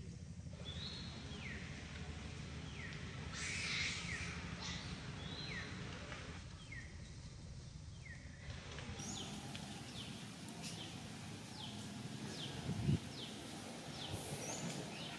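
A bird calling repeatedly in short downward-sliding chirps, at first about one every second or so and after about nine seconds quicker and higher, about two a second, over a steady low rumble of outdoor background noise.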